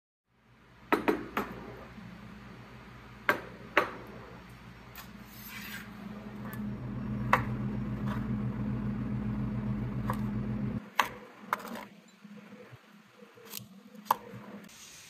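A small electric motor hums steadily, grows louder about six seconds in, then cuts off suddenly nearly eleven seconds in. Sharp clicks and knocks of hard objects being handled sound throughout.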